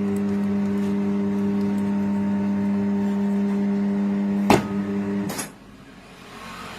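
Electric motor of a tyre changer running steadily as the turntable spins the wheel, a one-pitch hum. A sharp knock about four and a half seconds in, and the motor stops shortly after.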